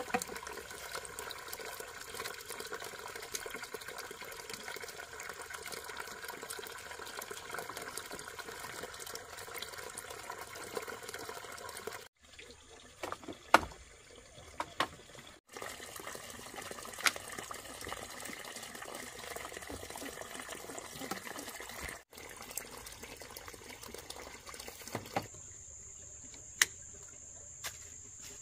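Water running steadily from a hose or pipe, with a few sharp clicks of plastic pipe fittings being handled. Near the end the water gives way to a steady high-pitched tone.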